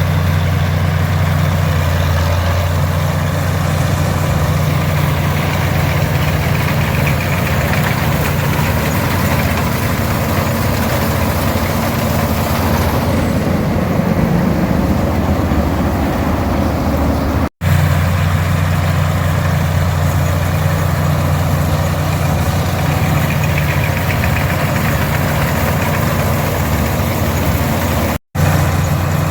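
The 282 diesel engine of an International 460 tractor running steadily at working speed, driving an International 82 pull-type combine as it harvests oats. The sound cuts out for an instant twice, about two-thirds of the way through and again near the end.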